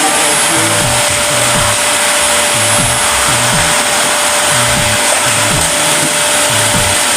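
Vacuum cleaner running steadily with a constant whine, under background music with a bass beat of about two beats a second.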